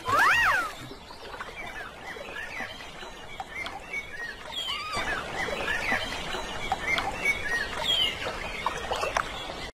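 Birdsong ambience: many small birds chirping and calling. Just after the start, one louder whistled call about half a second long rises and then falls in pitch.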